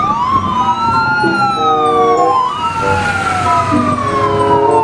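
Fire engine sirens wailing, several overlapping tones gliding up and down in pitch.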